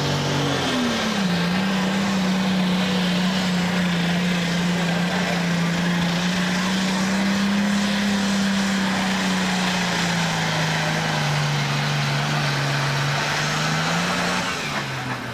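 Super stock pulling tractor's diesel engine running wide open under the load of the pulling sled, a loud steady drone. Its pitch drops about a second in as the load takes hold, sags again as it bogs later in the pull, and falls away at the very end.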